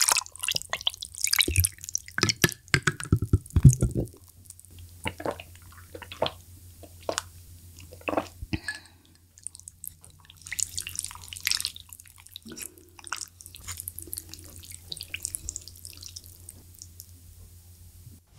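Tea poured from a bottle over ice into a glass mug, the ice crackling and clinking loudly for the first four seconds or so. After that come quieter, wet sounds of chopsticks stirring through soupy spicy hot pot and lifting noodles, with scattered soft clicks.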